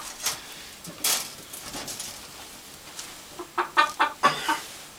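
Rooster clucking, a quick run of short calls near the end, with a brief rattle of the wire box trap being handled about a second in.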